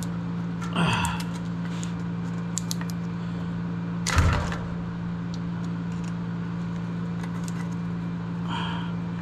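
Hands working wire connectors and tools at a furnace blower's control board: small clicks and rattles with one louder knock about four seconds in, over a steady low electrical hum.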